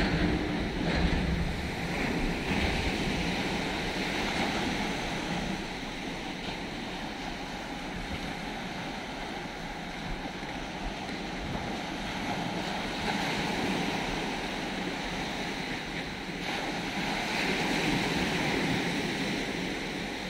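Shallow surf washing over a muddy beach, a continuous rushing that swells and eases, louder about two seconds in and again near the end, with wind buffeting the microphone.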